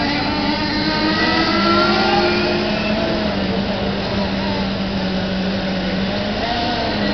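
Radio-controlled model racing cars running laps, their motors holding steady pitches that slowly rise and fall as they speed up and slow down.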